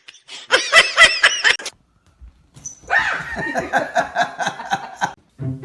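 A person laughing in a quick run of bursts, followed from about three seconds in by a longer wavering vocal sound.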